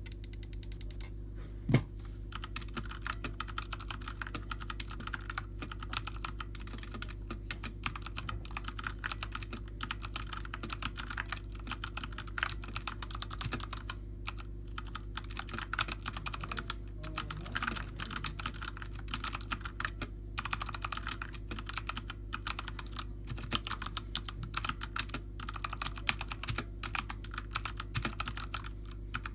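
Typing on a Redragon K530 mechanical keyboard with brown (tactile) switches: a fast, continuous run of keystroke clacks, with one louder knock about two seconds in, over a steady low hum.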